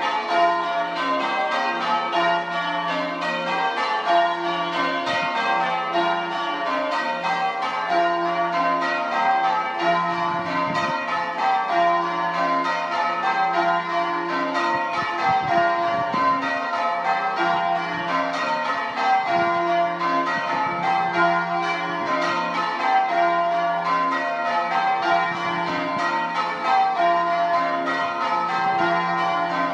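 Change ringing on a ring of six church bells: five Pennington trebles and a 13 cwt Taylor tenor in F. The bells are struck one after another in a steady, unbroken stream of overlapping strokes.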